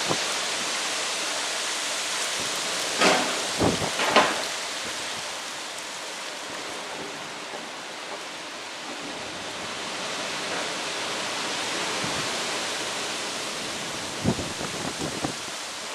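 Heavy thunderstorm rain falling as a steady dense hiss, easing slightly after about five seconds. A few short, sharp louder hits stand out over it, a cluster about three to four seconds in and another near the end.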